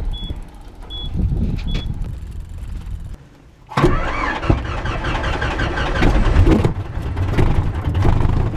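A short, high electronic beep repeats about once a second over a low rumble. About four seconds in, this gives way to a Van's RV-7 light aircraft's piston engine running loudly, heard from inside the cockpit.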